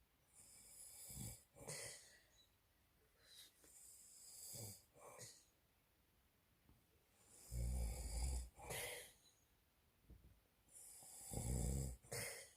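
A man snoring in his sleep, four breaths about three seconds apart, the last two loudest and deepest.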